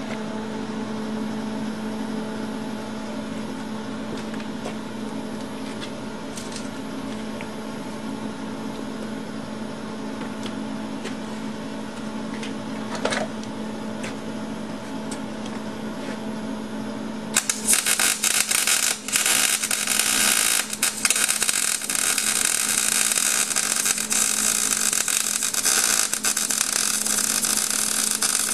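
A steady electrical hum, then about two-thirds of the way through, MIG welding starts: the arc of a Miller wire-feed welder crackling on steel in runs with brief breaks.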